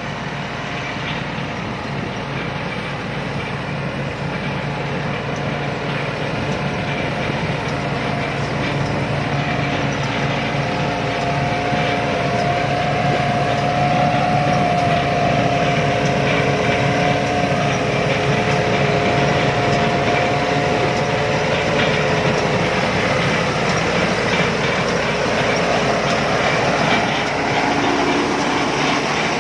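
Rice combine harvester running steadily: engine and machinery drone with a steady whine, getting louder over the first half.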